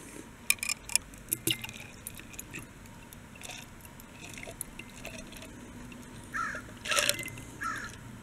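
Ice clinking in a mixing glass as a stirred cocktail is strained out in a thin stream into a serving glass. There are a few sharp clinks at first, then the quiet trickle of the pour, and a louder rattle of ice about seven seconds in.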